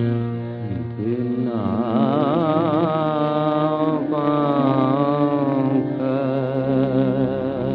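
Old Hindi film song: a singer holds long, wavering notes with heavy vibrato over steady, sustained accompaniment notes. The recording is dull and narrow-band.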